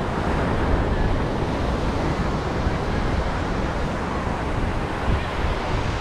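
Ocean surf washing onto a sandy beach, mixed with wind rumbling on the microphone: a steady rushing noise.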